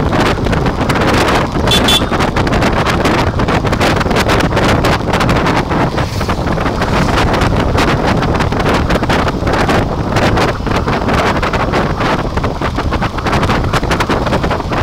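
Wind rushing and buffeting on the microphone of a moving motorcycle, steady throughout, with the vehicle's running noise underneath.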